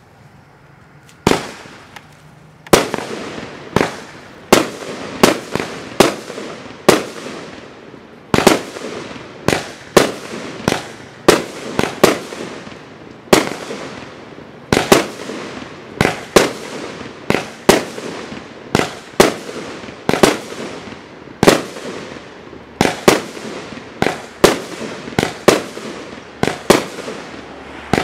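Thunder King 25-shot fireworks cake firing shot after shot: a long string of very loud sharp bangs, about one or two a second, each with a short fading tail. The first bang comes about a second in, after a quiet start.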